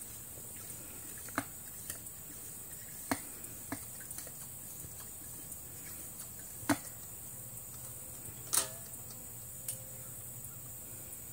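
Quiet summer pasture ambience: a steady high-pitched insect drone over a low hum, broken by a few sharp clicks and taps, the loudest about two-thirds of the way in.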